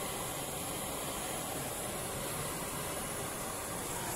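LPG–oxygen cutting torch flame hissing steadily.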